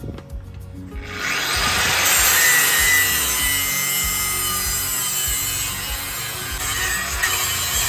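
Angle grinder cutting into metal, a loud steady grinding noise that starts about a second in and runs on, with a faint whine from the disc.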